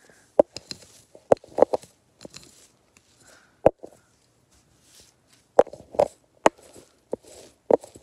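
ASMR tapping: a string of irregular, close-up taps and knocks on homemade craft fidget toys, with some scratchy rustling in between.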